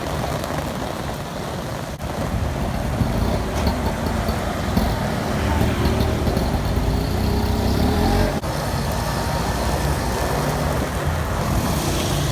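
Street traffic: vehicle engines running and passing, with a steady low hum and cut off abruptly twice.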